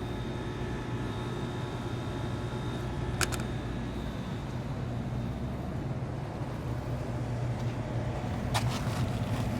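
York rooftop package unit running on its first stage: a steady mechanical hum, with two brief clicks about three seconds in and near the end.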